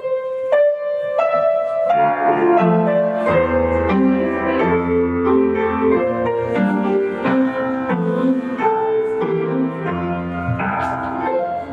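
Piano music: a few single notes, then a melody over chords and a bass line from about two seconds in.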